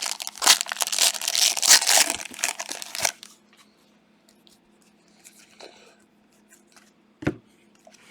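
Trading-card pack wrapper being torn open and crinkled for about three seconds, then quiet handling with a few faint ticks and a single short knock about seven seconds in.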